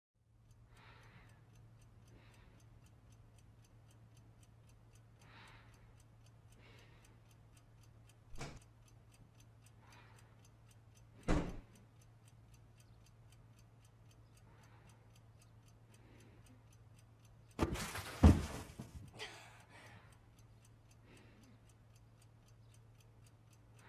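Quiet room ambience: a steady low hum with faint regular ticking like a clock. Two sharp clicks come in the middle, and a louder rustling, knocking burst comes about three-quarters of the way through.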